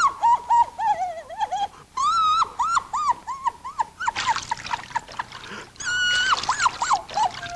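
Cartoon crying: a string of short, high, rising-and-falling sobbing wails, two or three a second. About four seconds in, a watery gushing splash runs under the sobs for a couple of seconds as a soaked handkerchief is wrung out.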